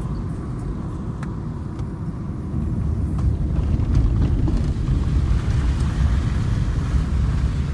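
Car road noise heard from inside the cabin while driving: a steady low rumble of engine and tyres, growing a little louder about two and a half seconds in.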